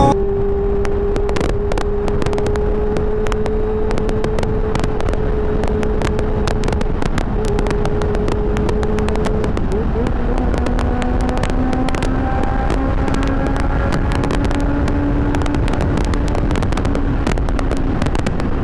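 Honda CB400 Super Four's inline-four engine running at highway cruising speed, its note slowly climbing in pitch, under heavy wind rush buffeting the handlebar-mounted microphone.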